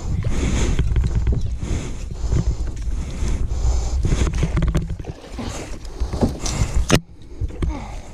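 Handling and water noise on a kayak: a steady low rumble with many small knocks and clicks. It breaks off suddenly about seven seconds in, leaving a quieter stretch.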